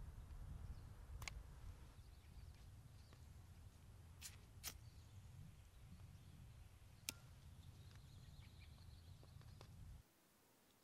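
Near silence: a faint low wind rumble with a few sharp clicks and faint high chirping. It drops to a quieter hush near the end.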